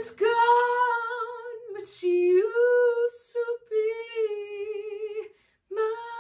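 A woman singing alone, holding long notes with vibrato, with almost no accompaniment. Her voice stops briefly about five seconds in, then a new note begins.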